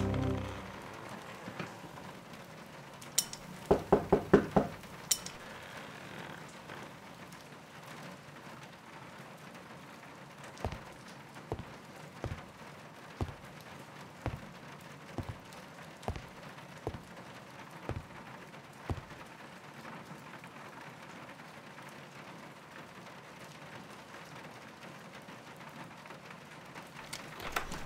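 Steady rain, with five quick, loud knocks on a wooden door about four seconds in. From about ten seconds in, about ten slow footsteps, roughly one a second, cross a wooden floor.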